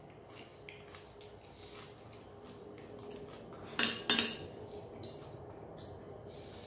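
Metal fork clinking sharply against a plate twice in quick succession, about four seconds in, with a few faint cutlery taps around it.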